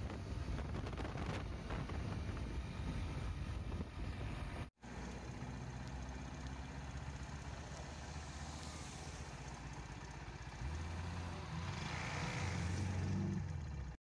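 Vintage open-top car's engine running as it drives past, with wind on the microphone; after a brief break, a car engine running steadily, getting louder for the last few seconds.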